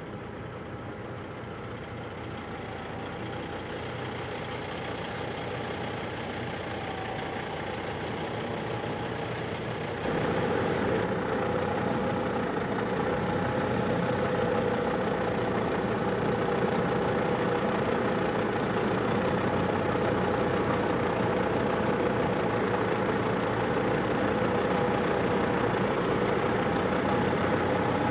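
Heavy truck's diesel engine running steadily and slowly growing louder. About ten seconds in, the level jumps suddenly to a louder truck engine idling close by.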